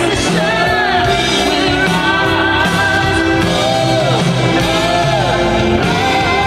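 Live duet singing over band accompaniment, with voices holding long notes and gliding between them.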